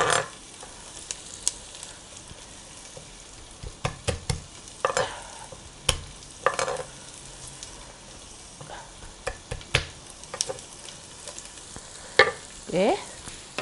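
Sliced onions, garlic and ginger frying in oil in an enamelled cast-iron pot: a steady low sizzle, broken by scattered knocks and scrapes of a kitchen utensil, the busiest cluster near the end.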